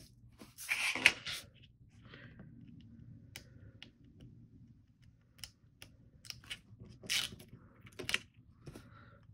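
Backing strip of double-sided tape being picked up with a craft knife and peeled off card: short paper rustles and crinkles with small clicks and taps, the loudest rustle about a second in.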